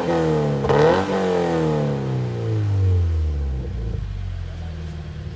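Scion FR-S flat-four engine revved through a freshly fitted MXP Comp RS cat-back exhaust. A quick blip about a second in, then the revs fall slowly and settle to a steady idle by about four seconds in.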